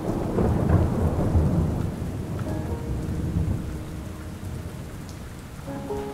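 Rolling thunder over steady rain; the rumble is loudest in the first two seconds and then dies away. A few soft, held musical tones come in about halfway through and again near the end.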